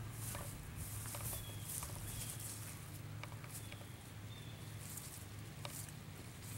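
Quiet outdoor ambience: a low steady hum under soft rustling and small clicks, with a few short, high, falling chirps.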